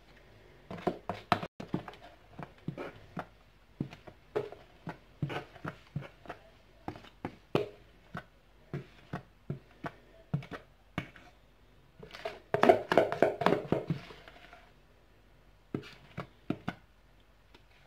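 A spatula scraping and knocking against a plastic mixing bowl as cake batter is emptied into a metal cake ring. It makes a string of short knocks, one or two a second, with a quick flurry of them about two-thirds of the way through.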